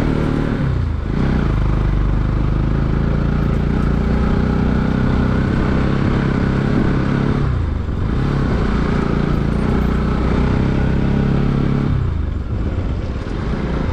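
Motorcycle engine running under way on an off-road ride. Its note dips briefly three times, about a second in, around eight seconds and near the end, and picks up again each time.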